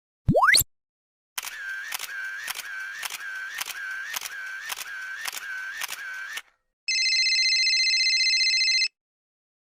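Three separate meme sound effects in turn. First a quick upward whistle-like sweep. Next a run of about ten evenly spaced clicks, roughly two a second, each with a short bending tone. Last, a steady electronic buzzing beep lasting about two seconds that cuts off sharply.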